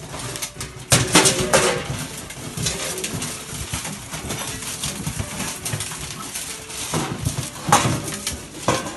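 Giant schnauzer puppies jostling at metal feeding bowls in a plastic tub, the bowls clattering and scraping as they eat, with sharp knocks about a second in and near the end.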